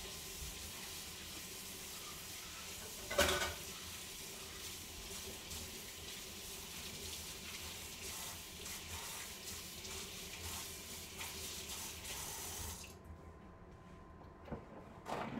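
Kitchen faucet running steadily into a stainless steel sink, with a knock about three seconds in. The water shuts off about two seconds before the end, leaving a few soft knocks.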